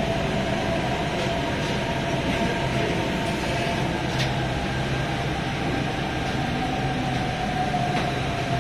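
Delhi Metro train running through an elevated station, heard from inside the carriage: a steady rumble of wheels and motors with a faint steady whine, and a single click about four seconds in.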